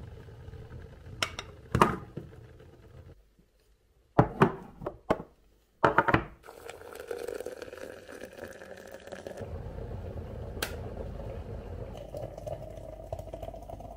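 Knocks and glass clinks as a glass French press is handled, a few sharp ones in the first six seconds. From about nine seconds in, hot water pours from an electric kettle into the glass French press onto coffee grounds, its pitch slowly rising as the press fills.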